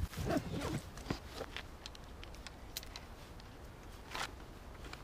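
Faint handling noises of a quadcopter drone being unpacked from its foam-lined hard case: scattered sharp clicks and light knocks, a few of them in the first second and single ones later on.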